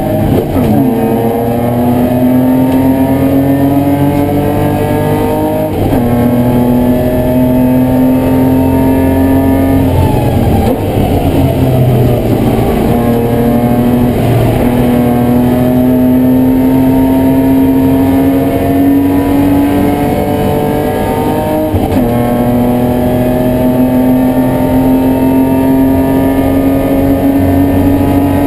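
BMW E30 race car engine heard from inside the cabin, pulling hard with its pitch climbing through the gears and dropping sharply at upshifts about a second in and near six seconds. Around ten seconds in the revs fall away and run low and uneven for a few seconds, then climb again with further shifts near twenty and twenty-two seconds.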